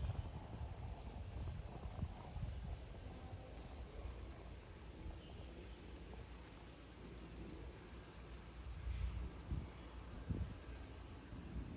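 Quiet outdoor ambience: a low, uneven rumble with faint, thin, high chirps above it.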